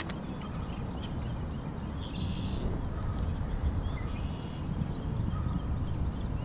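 Low steady rumble of wind on an action camera's microphone, with a sharp click at the start and a short high rasp about two seconds in.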